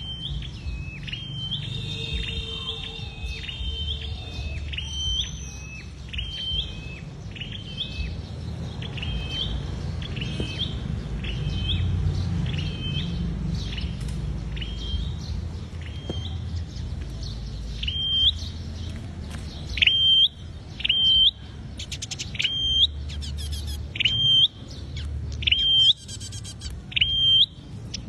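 Flowerpecker (the Vietnamese cage bird 'sâu đầu đỏ') calling in a long series of short, sharp, high chirps, about one a second, with a quick twittering run near the start. The chirps grow louder about two-thirds of the way through, over a low background rumble.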